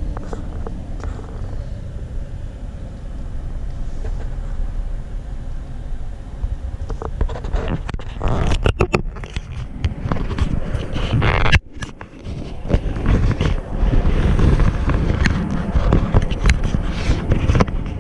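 Car cabin noise: a steady low rumble of the car in slow traffic. From about halfway through, loud irregular scraping and knocking sounds join it, fitting the dashboard GoPro being handled and repositioned.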